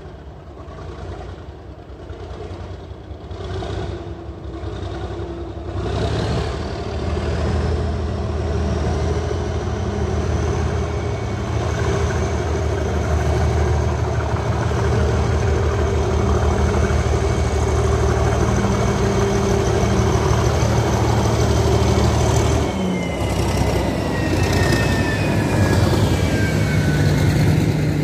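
Class 37 diesel locomotive's English Electric V12 engine running as it approaches slowly, growing louder from about six seconds in. A high whistle sounds over the engine and drops in pitch as the locomotive passes, about 23 seconds in. Wagons then roll past behind it with the engine still audible.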